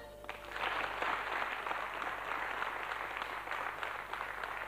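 Audience applauding, starting just as the last sung note of the mugham ends and continuing as an even clapping.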